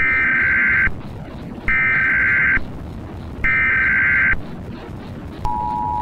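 Emergency Alert System SAME header: three bursts of warbling digital data tones, each just under a second long. The steady two-tone EAS attention signal starts near the end. A low rumbling drone runs underneath.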